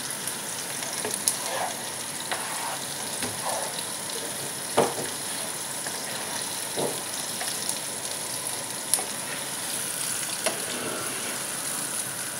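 Sliced onions sizzling in oil in a nonstick frying pan, being fried until lightly golden, while a plastic spatula stirs and scrapes them. A few sharp knocks of the spatula against the pan stand out, the loudest about five seconds in.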